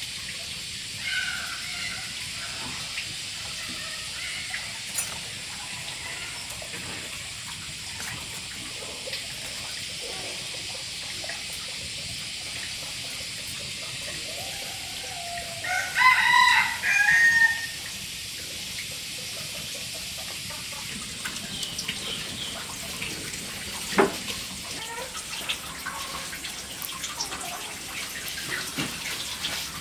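A rooster crows once, about halfway through, a loud call of about two seconds over a steady background hiss. A single sharp knock follows some seconds later.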